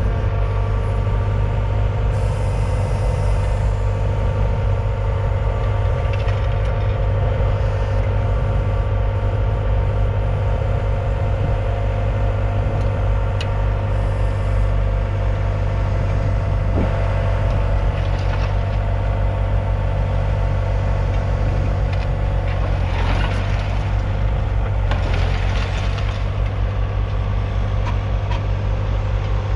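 John Deere 6210's 4.5-litre four-cylinder diesel engine running at steady revs, with a short rushing noise twice in the second half.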